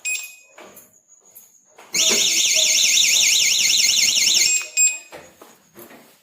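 Battery-powered anti-theft bike alarm giving a short beep, then about two seconds in sounding its loud, fast up-and-down warbling siren for about two and a half seconds before cutting off suddenly, followed by a click.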